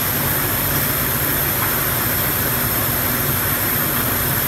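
Steady machinery noise in a factory hall: a hinge production line running, a continuous low hum under a rush of noise.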